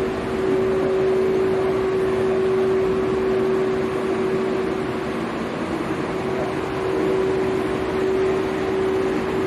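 EF81 electric locomotive hauling a container freight train slowly past: a steady humming tone over the even noise of the train running.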